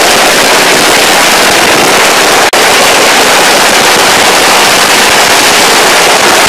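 A long string of firecrackers going off in a rapid, unbroken crackle of bangs, very loud, with a momentary break about two and a half seconds in.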